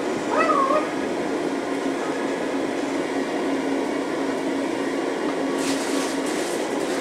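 The last of a high, sing-song, character-like voice announcement in the first second, then the interior hum of a monorail car standing at the platform: a steady drone with a constant low tone. A short hiss comes near the end.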